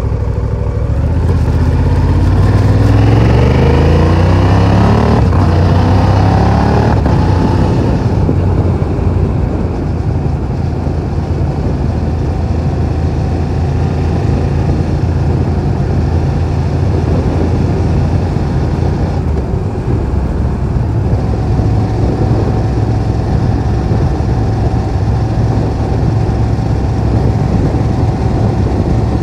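Honda Transalp 750 parallel-twin engine heard through a Euro 5 Akrapovic slip-on exhaust with a riveted-in baffle, recorded from the pillion seat while riding. The revs rise in steps through the gears for the first seven or eight seconds, then the engine settles into a steady cruise. The exhaust note is quite soft but deep and less metallic than the factory exhaust.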